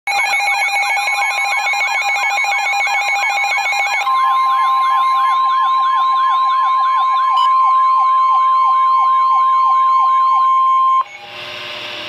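Midland weather radio sounding its alert: a siren-like run of rising whoops, quick at first and slower from about four seconds in, over a steady single-pitch warning tone. The tone is the NOAA Weather Radio warning alarm tone that comes before a warning message. Both cut off sharply near the end, leaving radio hiss.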